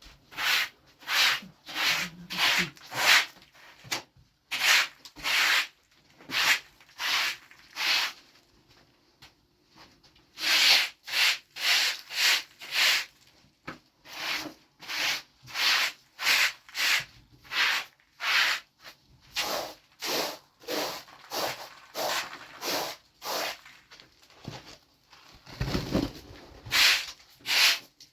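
Rhythmic rasping strokes of hand work rubbing or scraping a surface, about two a second, broken by a few short pauses, with a duller knock near the end.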